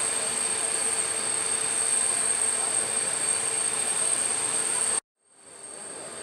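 AH-64 Apache helicopter running, a steady high turbine whine over constant engine noise. The sound cuts off abruptly about five seconds in and comes back quieter.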